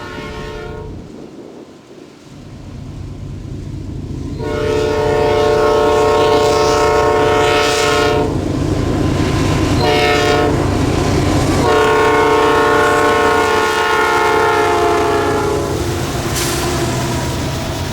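Norfolk Southern diesel freight locomotive's multi-chime air horn sounding the grade-crossing signal: the end of one long blast at the start, then a long blast, a short one and a final long one. The locomotive's diesel engine runs underneath as the train nears.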